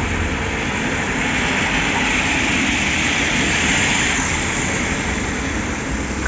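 A bus approaching on a wet street: engine running under a steady tyre hiss that swells in the middle and then eases.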